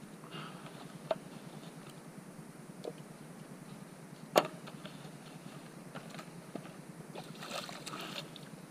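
Handling noises from a fold-out fish-measuring board on a paddleboard deck: scattered small clicks and taps, one sharp knock about four and a half seconds in, and a short rustle near the end.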